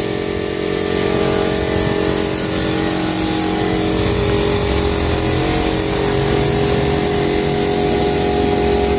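Air-fed paint spray gun hissing steadily as it sprays paint onto metal, over the steady drone of a motor supplying the air, its low hum getting a little stronger about three seconds in.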